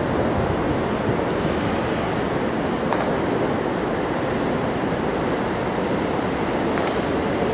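KiHa 72 series 'Yufuin no Mori' diesel railcar approaching on the main line, a steady rumble of engine and wheels on the rails, with a few faint short high chirps.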